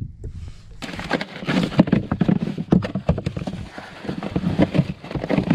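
Rapid knocking and clattering in a plastic fish cooler as its lid is worked and the freshly caught speckled trout and ice packs inside are shifted, starting about a second in.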